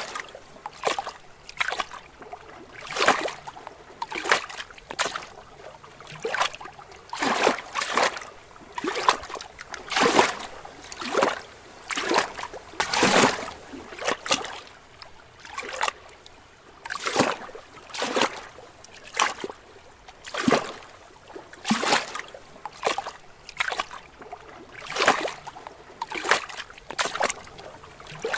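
Small lake waves lapping against rocks: irregular splashes, about one or two a second, over a steady wash of moving water.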